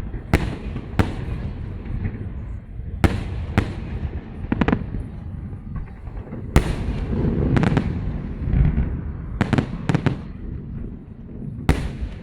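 Fireworks salute: shells bursting in sharp bangs at irregular intervals, some singly and some in quick clusters, over a steady low rumble.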